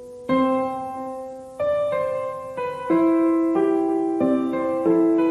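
Background piano music: single notes and chords struck about once a second, each ringing on and fading before the next.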